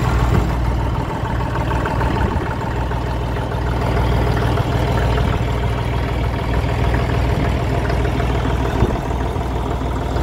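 Massey Ferguson 35 diesel tractor engine idling steadily.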